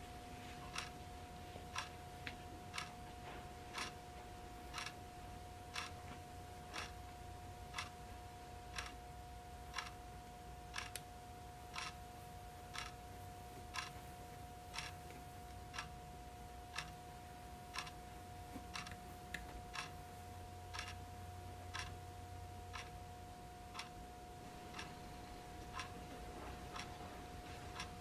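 A clock ticking steadily and evenly, about once a second, over a faint steady hum.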